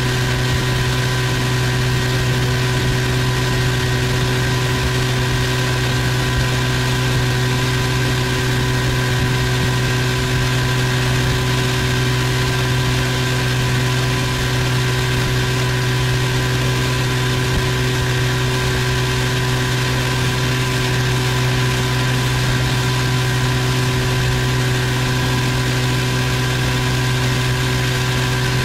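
Boat's outboard motor running steadily at cruising speed. It has been freshly tuned up with new spark plugs.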